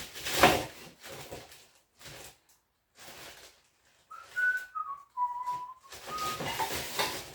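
Clattering and knocking of tools being rummaged through while searching for a Phillips screwdriver, with a short whistled phrase a little past the middle: a few notes stepping down in pitch, the last one held briefly.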